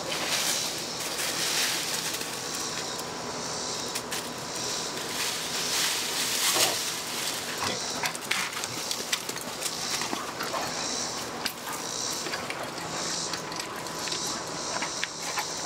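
Puppies play-fighting and chasing each other across dirt and dry leaves: scuffling paws and many short rustling clicks, with a few brief dog noises.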